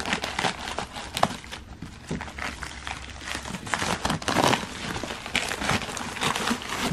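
Plastic bubble mailer crinkling and rustling as it is cut along one end with scissors and pulled open by hand, with many small irregular crackles and clicks.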